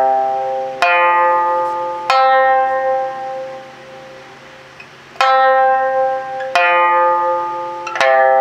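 Sanshin, the Okinawan three-string lute with a python-skin drum, tuned C–F–C and plucked with a plectrum: five single notes, each struck sharply and left to ring and fade, with a longer pause between the third and fourth. The skin is stretched to 11-bu tension for a bright, high-register tone of about 800 Hz.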